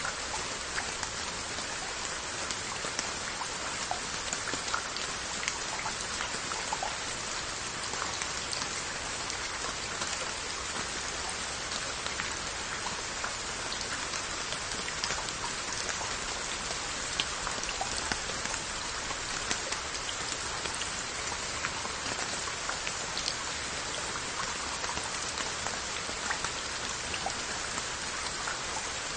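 Rain falling steadily on earthenware onggi crocks and their lids, a dense patter with many separate drops ticking on the pottery.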